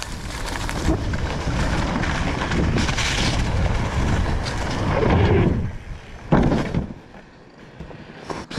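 Wind on a rider-mounted camera microphone and bicycle tyres rolling over a rough grassy dirt trail on a fast downhill run, with a heavy thump about six seconds in, then quieter.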